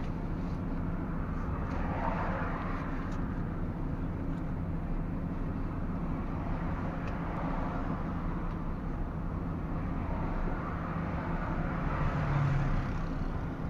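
MAN TGS 33.480 tractor unit's six-cylinder diesel engine running on the move, heard inside the cab over steady tyre and road noise that swells a few times. Near the end the engine note gets louder for a moment.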